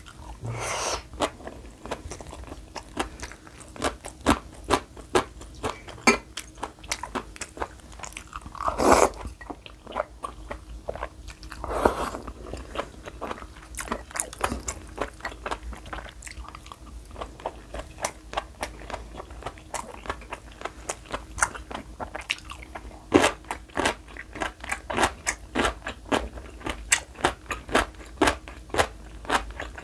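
Close-miked eating sounds: a person chewing a mouthful of rice and beef, with a dense run of quick wet clicks and crunches. A few louder, longer bursts stand out about a third of the way in.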